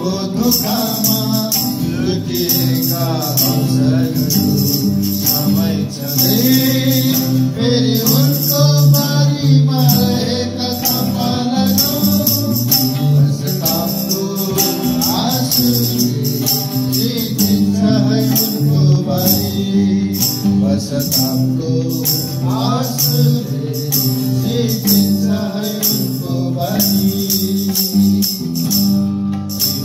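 A Christian worship song performed live: a voice singing over strummed acoustic guitars and a hand drum, with jingling percussion keeping a steady beat.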